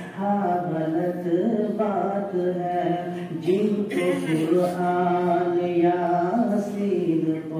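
A man singing a naat into a microphone, drawing out long held notes that slide up and down between pitches, with only short breaths between phrases.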